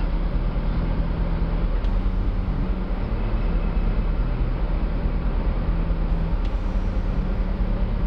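Service boat's diesel engine running steadily, a constant low drone.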